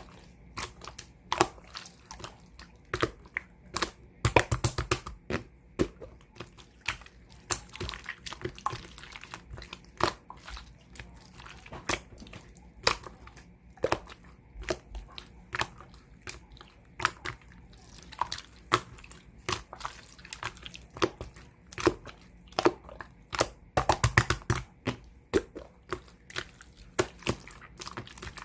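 Hands squishing and poking clear sky-blue slime, making irregular sticky pops and clicks, with quick runs of crackling about four seconds in and again near the end.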